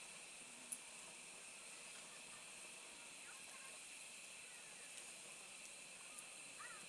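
Near silence: a faint steady hiss with a few faint short chirps and a single click about a second in.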